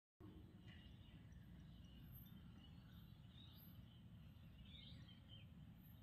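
Near silence: faint steady background noise with a few faint, scattered chirps.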